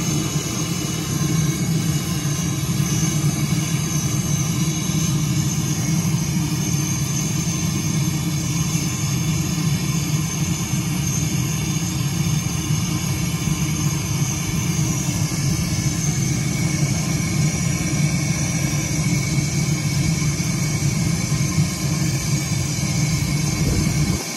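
Propane grill torch blowing a steady jet flame into lump charcoal, a loud continuous low rush of burning gas that cuts off suddenly near the end.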